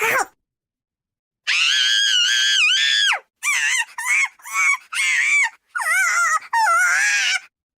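High-pitched squealing cries from a female voice: one long held squeal of about a second and a half, then five shorter squeals that bend up and down in pitch.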